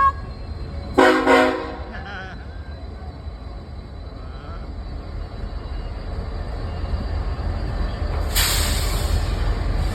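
Locomotive air horn giving one short blast about a second in, over the steady low rumble of a passing train. A brief hiss comes near the end.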